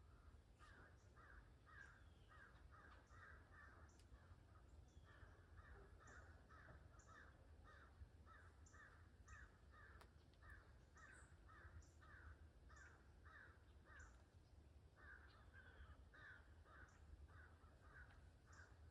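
Faint, repeated harsh bird calls, about three a second in long runs with two short pauses, with faint high chirps above them and a low steady rumble underneath.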